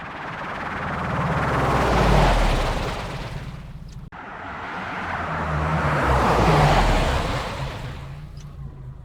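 Two futuristic vehicle fly-bys made from car recordings run through a flanger. Each one swells up and fades away over about four seconds, with a sweeping, whooshing hiss over a low, wavering hum. The first is cut off suddenly about four seconds in, as the second begins.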